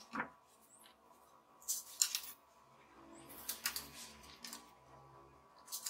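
A few light clicks and scrapes as a steel tape measure is handled and its blade pulled out across a plywood sheet, with a small knock just after the start as the plywood settles.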